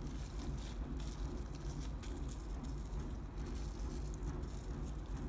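Plastic cling film crinkling lightly and irregularly as hands press and roll a wrapped log of cookie dough, over a steady low hum.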